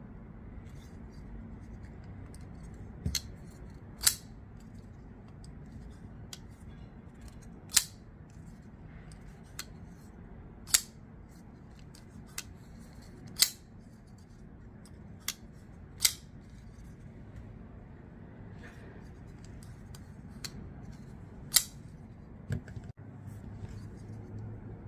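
Kizer Doberman folding knife being flicked open and snapped shut, with a sharp metallic click of the blade locking or closing every few seconds, about ten clicks in all.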